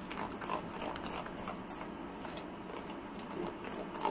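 A spoon stirring whisked yogurt mixed with ground spices in a bowl: quick clicking and scraping strokes, about three a second, that thin out midway and pick up again near the end.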